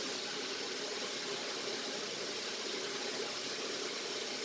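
Steady, even hiss with nothing else happening: the background noise of the recording.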